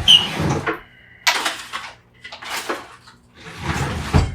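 Clattering and rustling of small hard plastic and metal pieces, plugs and power-cord fragments, being handled and moved, in four short bursts.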